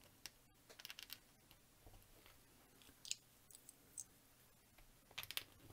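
Faint, scattered clicks of small Sembo Block plastic building bricks being handled and pressed together, in a few short bunches with pauses between.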